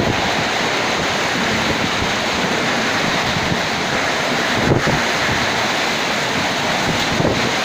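Heavy rain and wind of a summer storm, a steady rushing, with wind buffeting the microphone.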